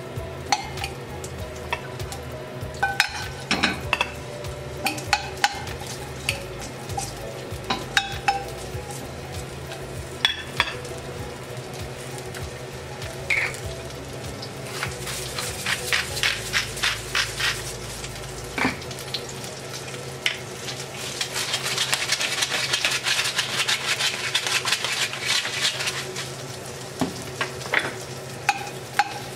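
Asparagus spears frying in butter in a stainless steel pan, a steady sizzle with scattered sharp clinks of metal tongs against the pan. A quick run of clicks comes a little past the middle, and the sizzle grows louder for a few seconds after that.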